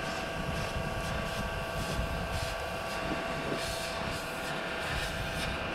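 A machine running steadily, with a constant high whine over a low rumble and hiss.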